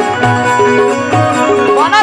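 Instrumental interlude of a Bhojpuri kajri folk song: an Indian banjo (bulbul tarang) and a harmonium play a stepping melody over a regular tabla beat with a deep drum stroke. A wavering, swooping tone enters near the end.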